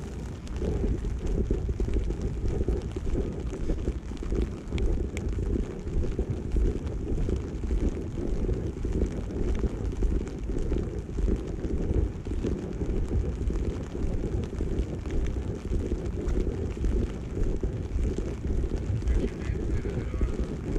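Wind buffeting the camera's microphone: a continuous gusting rumble that flutters rapidly in loudness.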